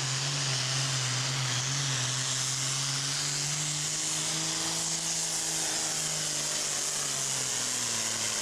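Super farm pulling tractor's turbocharged diesel engine at full throttle, dragging a weight-transfer sled. Its pitch climbs a little around the middle of the pull and drops toward the end as the load builds.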